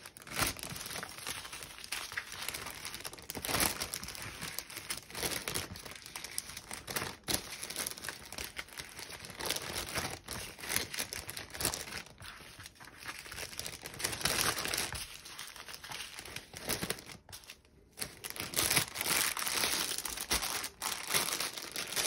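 Small plastic zip bags of diamond painting drills crinkling and rustling as they are handled and packed one after another into a larger clear plastic bag.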